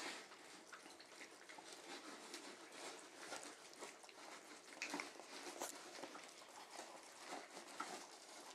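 A litter of puppies eating from bowls: faint, irregular wet lapping and chewing clicks.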